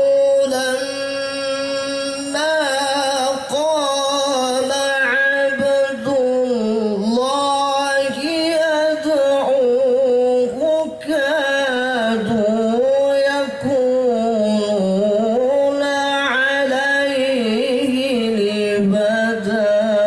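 Quran recitation (tilawah) sung by a man in the melodic maqam style, with long held notes that slide and ornament up and down between breaths.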